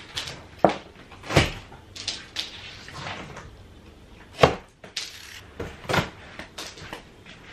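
Large cardboard flat-pack boxes being handled: a handful of dull knocks and thumps with light scraping and rustling between them.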